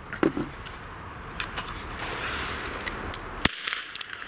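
Blank-firing revolver, a Röhm RG56, shooting a 15mm Gold Flash pyro cartridge: a few small metallic clicks of handling the gun, then one sharp shot about three and a half seconds in, followed by a few smaller crackles.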